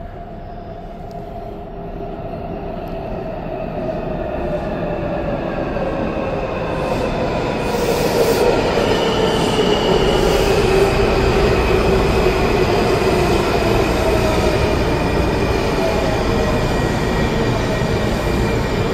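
Washington Metrorail 3000-series train pulling into the station. It grows louder for about eight seconds as it approaches, then runs alongside the platform as it brakes, with a whine that falls in pitch as the train slows.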